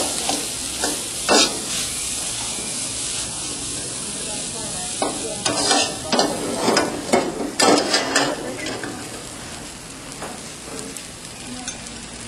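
Phad Thai rice noodles sizzling in oil in a hot wok, with a metal spatula scraping and turning them against the wok. The scrapes come once early on, then several in quick succession in the middle, and the sizzle eases a little near the end.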